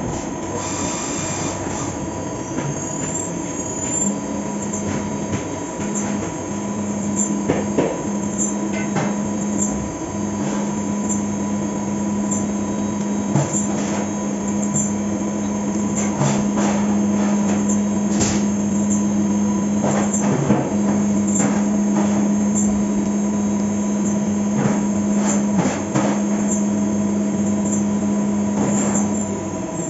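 Fagima Jazz M 5-axis CNC machining centre milling a part: a steady spindle whine, with a strong low cutting hum that starts about four seconds in and runs on with a few brief breaks. Scattered sharp clicks sound over it.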